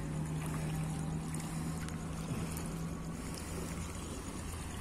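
A low engine drone, steady and holding one pitch, over a faint even hiss.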